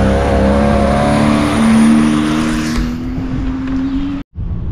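BMW E36 rally car's engine pulling hard through a sandy corner, its note climbing steadily for about four seconds over the hiss of tyres throwing sand. The sound breaks off for an instant near the end and comes back quieter.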